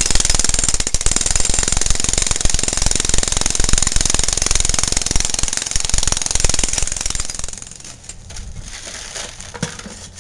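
Jackhammer breaking up a sidewalk, running in rapid continuous blows, then stopping about seven and a half seconds in; a few lighter knocks follow.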